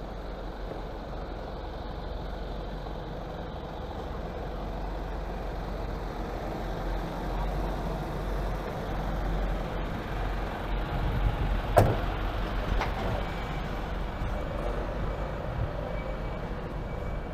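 Truck and van engines running close by, a steady low rumble, with one sharp knock about twelve seconds in and a fainter knock a second later.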